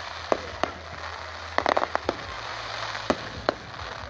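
Fireworks display: sharp bangs and crackling pops at irregular intervals, with a quick cluster of them about a second and a half in.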